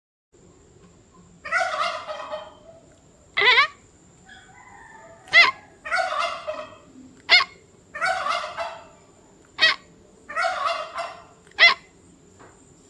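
A turkey gobbling repeatedly: about four rattling gobbles of roughly a second each, alternating with short, sharp calls, in a back-and-forth rhythm.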